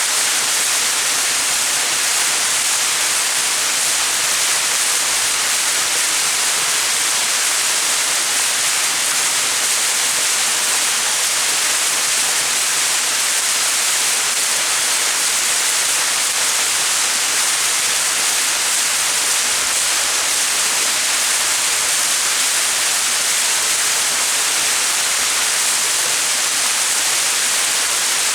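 Small mountain waterfall splashing into its pool, a steady, even rush of water.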